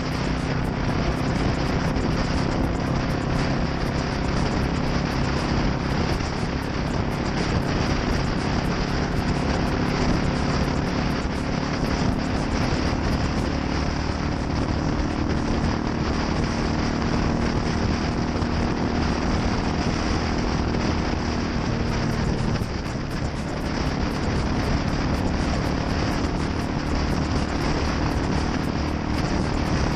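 Yamaha SR400's single-cylinder four-stroke engine running steadily through an aftermarket NitroHeads muffler, with a brief drop in level and pitch about three-quarters of the way through.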